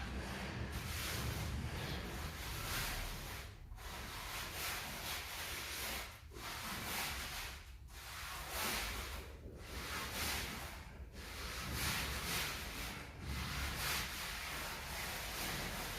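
Trowel scraping and smoothing a floor mortar bed in repeated long strokes, each broken by a brief pause.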